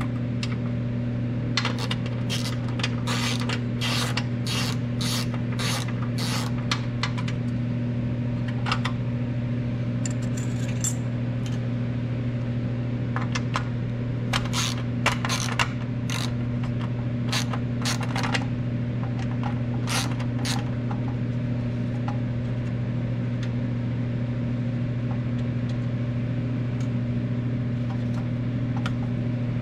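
Small hand ratchet clicking in runs of evenly spaced clicks as screws are backed out of the instrument cluster's metal housing, with two long runs and a few scattered clicks later. A steady low electrical hum underneath.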